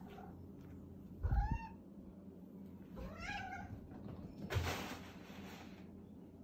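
Tabby house cat meowing twice: a short call about a second in, then a longer, wavering one about three seconds in. A thump and about a second of rushing noise follow near the middle.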